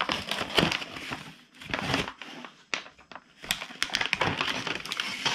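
Action-figure blister-card packaging being torn open by hand, with irregular rustling and sharp snaps of plastic and card.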